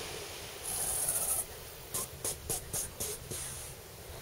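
Quiet handling noises around a switched-off bench buffing motor: a soft hiss about half a second in, then a quick run of five or six brief rubbing scrapes.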